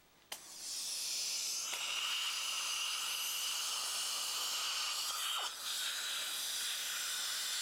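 Dental air-water syringe spraying a rinse into the mouth while a high-volume suction tip draws it off, a steady hiss. It starts with a click and has a short break about five seconds in.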